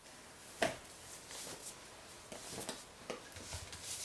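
A few faint clicks and short rustles of something being handled, with one sharper click about half a second in.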